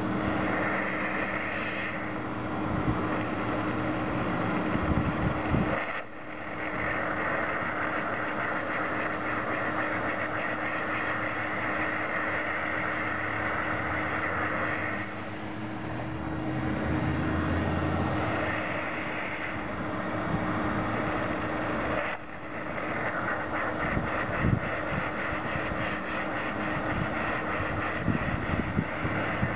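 Gum-removal wand spraying hot water and steam onto concrete, a loud hiss that starts and stops several times as the trigger is worked, over the steady hum of the machine.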